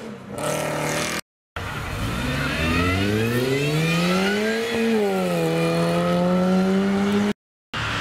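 A first-generation Mini Cooper S, with its supercharged four-cylinder, accelerates past. The engine note climbs steadily for about three seconds, dips a little, then holds steady. Before this there is a short, quieter stretch of another car pulling away.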